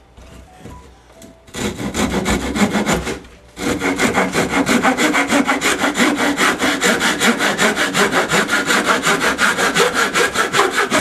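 A hand saw cutting through pallet wood in quick, even back-and-forth strokes. It starts about one and a half seconds in, pauses briefly after about three seconds, then saws on steadily.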